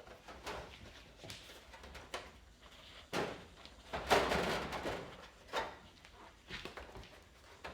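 Plastic back panel of a plasma TV being pried loose and lifted off: a series of irregular knocks and clicks, with a louder scraping rattle about four seconds in.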